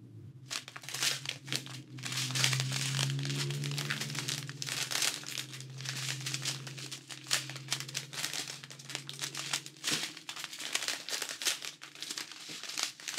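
Strips of thin clear plastic drill bags for diamond painting crinkling continuously as they are handled and turned over in the hands: a steady run of crackly rustles.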